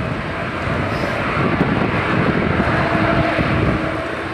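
Jet aircraft engines running, a steady rushing noise with a faint steady whine for about a second in the middle.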